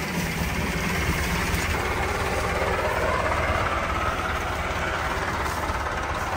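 Massey Ferguson 385 tractor's four-cylinder diesel engine idling steadily.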